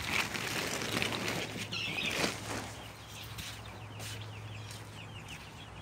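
Plastic tarp rustling and flapping as it is pulled about on a wooden chick brooder, then a quick run of short high peeps, about four or five a second, from chicks.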